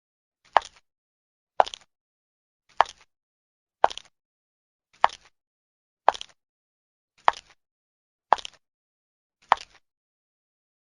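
Slow footsteps in high heels: sharp heel clicks, each with a small trailing tap, about one step a second, nine steps in all, stopping shortly before the end.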